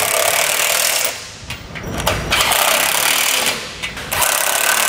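Power tool running the nuts down onto a trailer brake actuator's mounting bolts, in three bursts of a second or more each.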